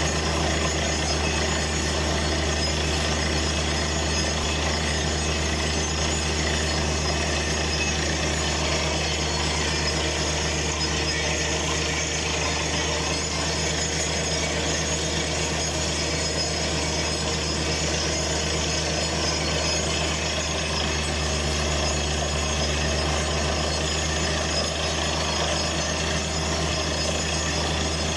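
Truck-mounted water-well drilling rig running steadily: its engine drones, over the hiss and splash of water and cuttings blown out of the borehole around the drill pipe.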